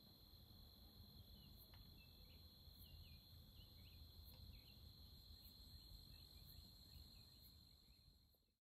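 Faint insect chorus: a steady high-pitched trill with short chirps repeating over it, fading out at the end.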